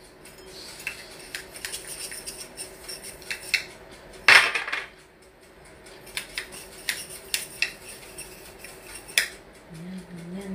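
Small metal baking molds clinking against each other and the table as they are picked up, buttered and set down. There are irregular light clinks throughout, and a louder metallic clink about four seconds in and again near the end.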